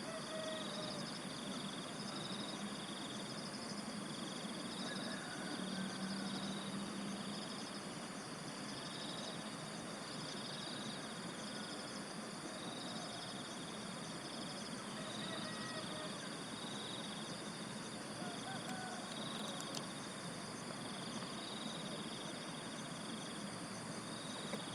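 Insects calling in a steady chorus after rain: several continuous high buzzing tones and a rhythmic, pulsing trill, with faint short chirps now and then. A low hum swells briefly about six seconds in.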